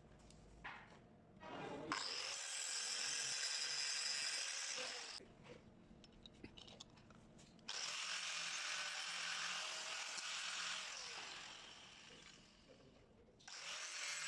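A power tool working steel in two long runs of hissing, rasping noise, the second starting suddenly about halfway through and fading near the end.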